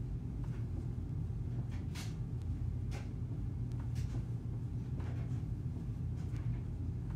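Footsteps of someone doing step-ups on a staircase, a footfall about once a second, over a steady low hum.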